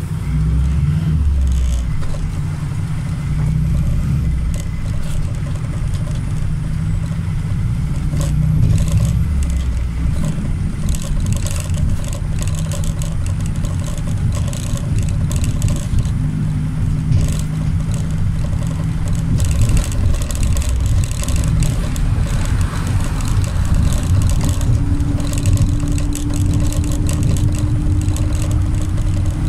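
Volksbus 9-160 diesel engine of a Marcopolo Senior G7 minibus running under way, heard from inside the cabin as a continuous low rumble. Panels and fittings rattle and clatter, and a thin steady whine comes in during the second half.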